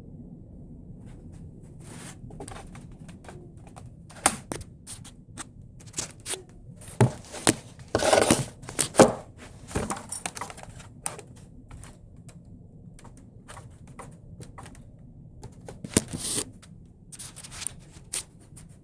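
Homemade animatronic figure's mechanism moving: irregular clicks, clacks and thunks, busiest through the middle and again near the end, with a short hiss about eight seconds in.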